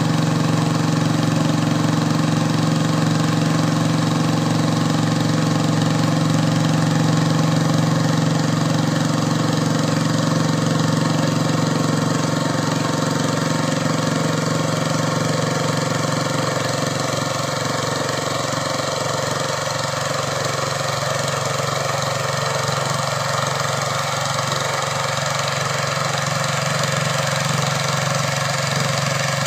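Modified garden pulling tractor's engine idling steadily, its tone shifting slightly a little past the middle.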